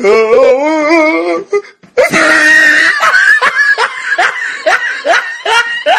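Children laughing and squealing: a wavering high squeal, a short shriek about two seconds in, then quick giggling laughter.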